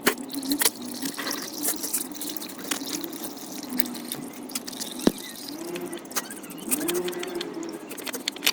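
Old engine oil trickling and dripping from a canister oil filter as it is unscrewed by hand, with scattered small clicks and a sharp knock about halfway through.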